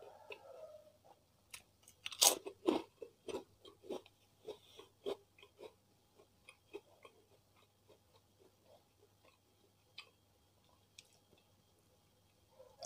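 Close-miked chewing of crunchy food: a burst of loud crunches about two seconds in, then softer wet chewing clicks that thin out and taper off.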